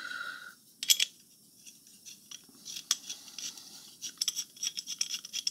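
Small steel parts of a bench-grinder tool rest clinking and clicking as they are handled and bolted together: one sharp metal clink about a second in, then a quick run of light metallic clicks and rattles near the end.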